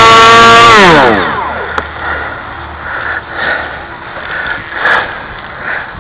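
Electric motor of a large foam RC F-22 Raptor model held at full throttle on the ground, then throttled back, its pitch falling away about a second in. It pulls hard enough that the plane tries to take off by itself.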